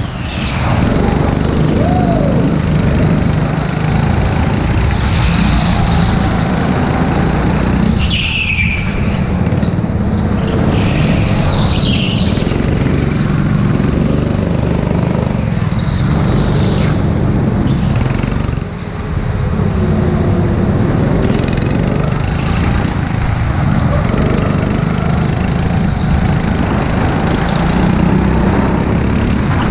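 Go-kart engine running hard under the seat, with its note rising and falling through the corners, and a few short high tyre squeals.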